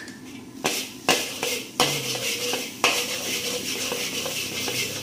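Metal spatula clanking and scraping against a wok while stir-frying, several sharp clanks in the first two seconds, then a steady sizzle.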